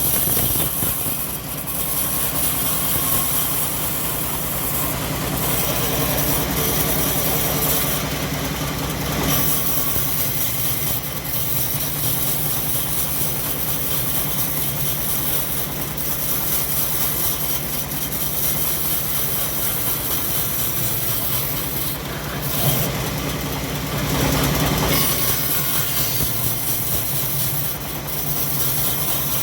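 Engine of a homemade bandsaw mill running steadily while the blade cuts teak logs, the sound brightening briefly twice.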